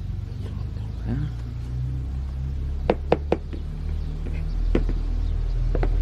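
A plastic flowerpot being handled and knocked against a plastic tub of potting soil: a quick run of three knocks about three seconds in, then single knocks near the end. Under it, a steady low rumble that grows louder.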